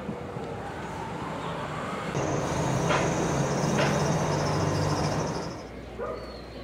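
A motor vehicle passing, its engine hum and a high steady whine swelling for about three seconds in the middle and then fading.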